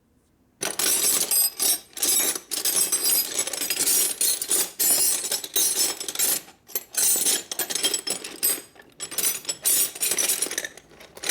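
Metal wrenches clattering and clinking as they are sorted through while someone picks out the right size. It is an irregular run of sharp clinks and rattles, starting about half a second in and thinning out near the end.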